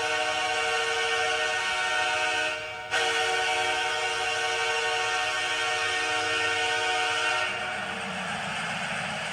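Hockey goal horn blasting a steady multi-tone chord in two long blasts, the second starting after a short break about three seconds in. Near the end the horn stops and a duller rushing noise takes over.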